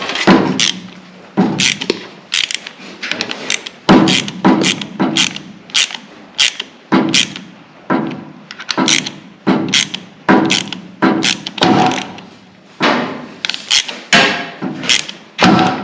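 Hand ratchet and socket working bolts tight, clicking and clanking in short bursts every half second or so as the handle is swung back and forth.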